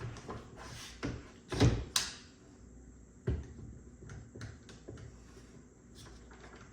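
Wooden knocks and clunks from handling a freshly glued drawer box held in clamps: a few sharp knocks with lighter clicks between them, the loudest a little under two seconds in.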